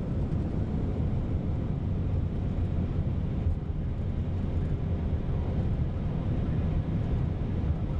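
Steady low rumble inside the cockpit of an Airbus A319 decelerating on its landing rollout, with the engines in reverse thrust and the wheels running on the runway.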